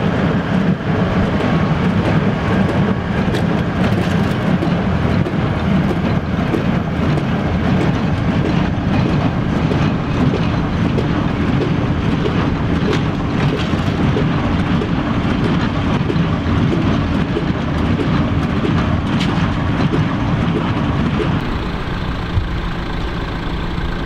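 Case IH Farmall 115C tractor's diesel engine and a Welger AP530 small square baler running steadily while baling hay. The sound gets a little quieter near the end.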